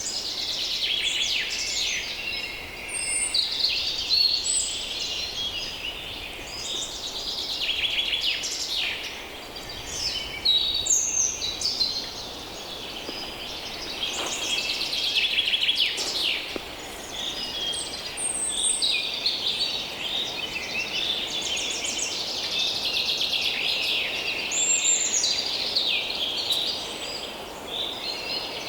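Many songbirds calling and singing at once in a dense chorus of chirps, trills and short whistles, with a faint low hum of distant human activity and a light breeze beneath.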